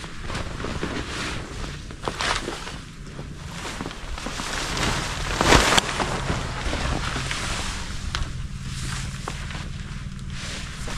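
A fabric cover rustling and flapping as it is thrown over a pop-up hub tent and pulled into place, with wind buffeting the microphone. The loudest rush of flapping comes about five and a half seconds in.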